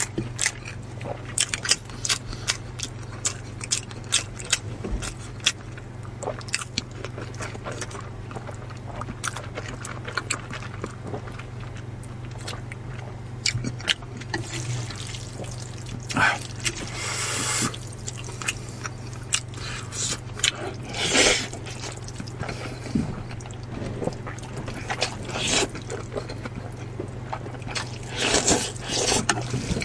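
Close-miked eating: crisp crunching and chewing of a raw green vegetable, then several loud slurps of noodles, the last near the end. A steady low hum runs underneath.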